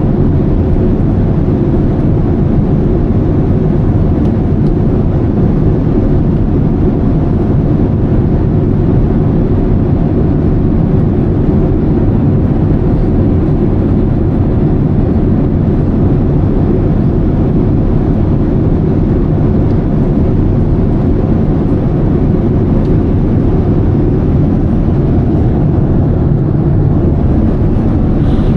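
Steady, low cabin noise of a Boeing 787 airliner in flight, heard from a passenger seat: the even drone of engines and airflow, with no change throughout.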